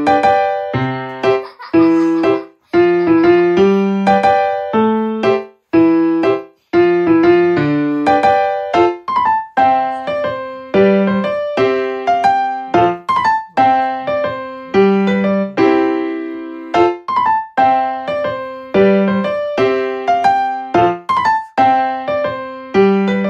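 Background piano music: a gentle repeating melody over chords, each note struck and then fading.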